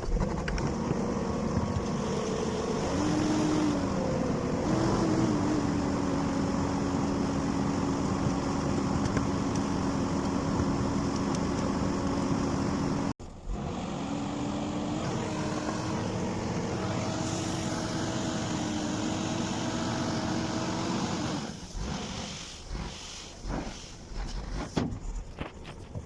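Mercedes-Benz truck's diesel engine running while driving, its pitch rising a few seconds in and then holding steady. Near the end the engine sound gives way to scattered knocks.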